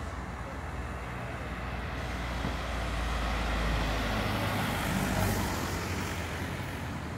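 A motor vehicle driving past, its engine rumble and tyre noise building to a peak about four to five seconds in and then fading away.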